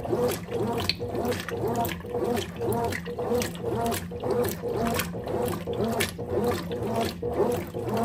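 Consul Maxi Economia 13 kg (CWE13) top-load washing machine agitating a soaked comforter, with water sloshing back and forth in a steady rhythm about twice a second over the drive motor's hum.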